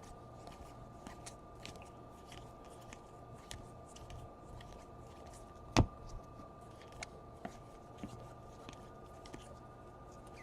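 Trading cards being handled and flipped through by hand: soft sliding with scattered small clicks, and one sharp tap a little before the six-second mark. A faint steady hum runs underneath.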